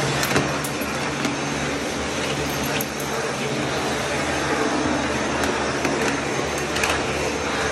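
Vacuum cleaner running steadily as its floor tool is worked over a tiled floor, with a low steady hum under the noise and a few light clicks.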